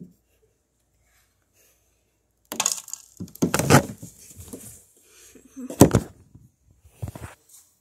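Irregular crackling and knocking close to a phone's microphone as it is handled, with a sharp, loud knock about six seconds in and a shorter one near the end.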